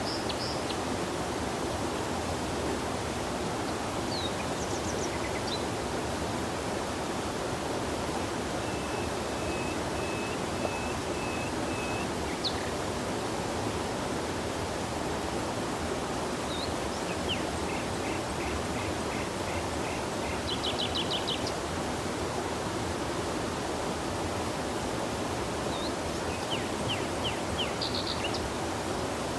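Steady rush of flowing stream water with birds singing over it in short high chirps and trills. There is a run of evenly repeated notes about a third of the way in, and quick trills in the second half.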